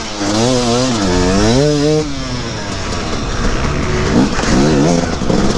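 KTM 250 EXC two-stroke enduro bike engine revving up and down under repeated throttle blips as it is ridden through a slow obstacle section. The revs are strongest in the first two seconds, ease off, then rise and fall again near the end.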